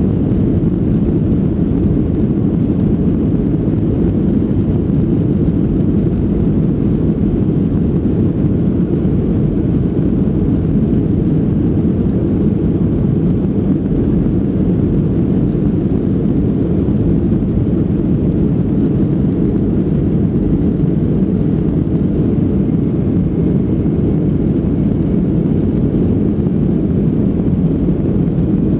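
Cabin noise inside a Boeing 757-300 airliner moving along the runway: a loud, steady low rumble from the jet engines and airframe that stays even in level and pitch.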